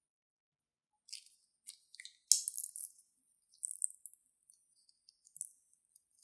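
Plastic piping bag crinkling and crackling in irregular bursts as it is squeezed to pipe slime, the loudest burst a little over two seconds in.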